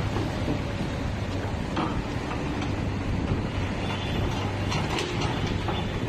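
Komatsu backhoe running steadily under work, its diesel engine humming low with scattered metallic clanks and rattles from the machine's moving parts.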